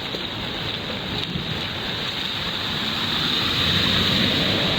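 Steady rushing wind noise on the microphone, growing a little louder near the end.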